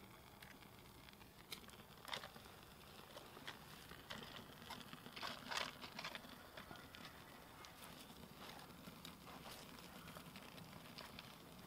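Faint crackling of a small bark-tinder fire being started in the firebox of a stone-and-clay kiln, with rustles and light snaps as dry twigs are handled and fed in. The snaps come thickest about five to six seconds in.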